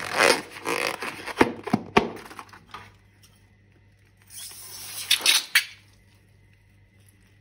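Two bursts of rustling, crackling handling noise with sharp clicks: the first in the opening two to three seconds, the second from about four to six seconds in.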